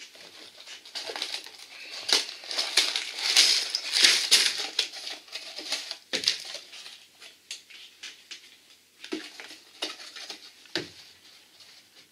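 A small cardboard Lego box being opened and emptied: plastic bags full of bricks and a paper instruction booklet sliding out, crinkling and dropping onto the table. The rustling is heaviest about two to five seconds in, then thins to scattered light rustles and taps.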